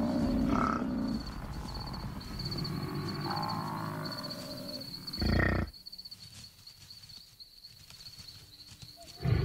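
Lions growling and snarling as they attack an African buffalo herd, mixed with buffalo calls. The loudest growl comes just past five seconds in; it then goes quieter until a fresh burst at the very end.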